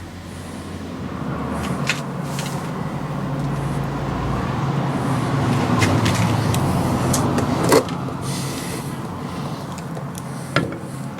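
A motor vehicle's engine hum swells and slowly fades as it goes past, with a few sharp metallic clinks from parts being handled, the loudest just before 8 s.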